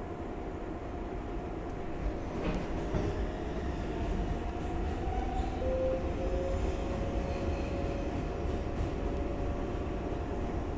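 R142A subway train running past a station platform, with a steady rumble that grows louder after about two seconds. A steady whine runs throughout, and a second, slightly rising whine comes in about halfway.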